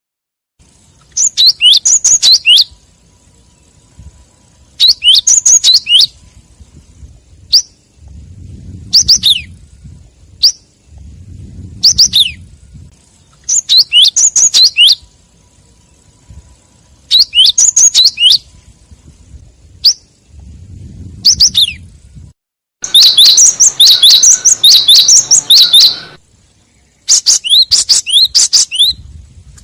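Gelatik wingko (cinereous tit) calling: groups of quick, sharp, falling chirps, one group every few seconds, with a longer run of chirps a little after twenty seconds in. It is the fierce ('pedas') lure call used to provoke other gelatik.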